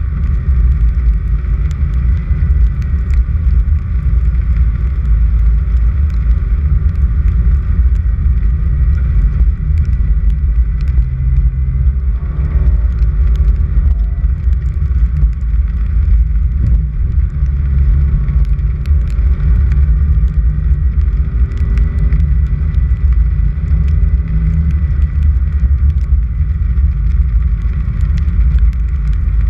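Car driving along a dirt road: a steady low rumble of engine and tyres.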